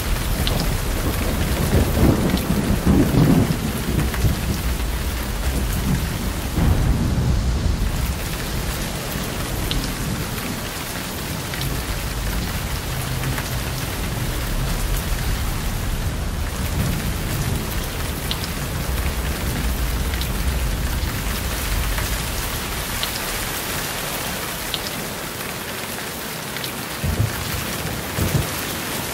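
Heavy rain falling steadily, with low thunder rumbles, strongest a couple of seconds in and again around six or seven seconds.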